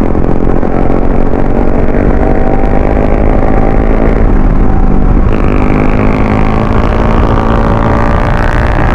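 Sport motorcycle engine running at road speed from the rider's seat; the engine note eases a little about four seconds in, then climbs steadily as the bike accelerates.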